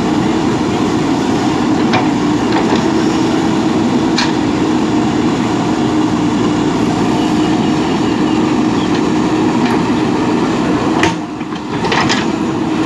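JCB backhoe loader's diesel engine running steadily as it works, with a few sharp clanks. The sound drops briefly about eleven seconds in, then picks up again.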